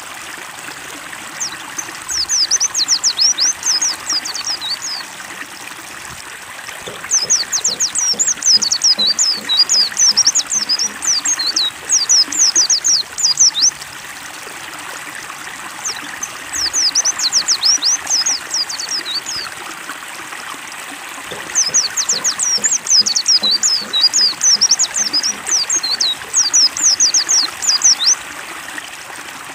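Steady trickling, splashing water under a white-eye (pleci) singing in bouts of rapid, high, chittering notes, each bout a few seconds long with short pauses between, as in a bird-training 'water therapy' track.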